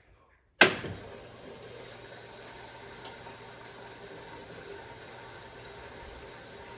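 A sharp click about half a second in, then a steady machine hum with a hiss.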